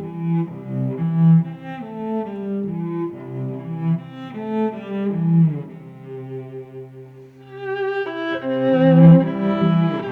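Background music played on bowed strings: a low, cello-like melody moving from note to note, with higher strings joining about eight seconds in.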